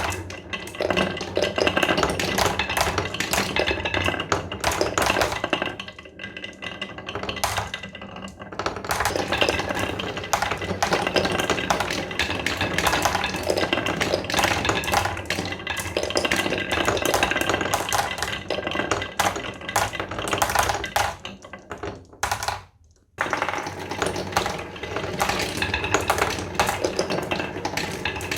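Dense, continuous clicking and clattering of small hard objects over a faint low steady hum, briefly dropping away about twenty-three seconds in.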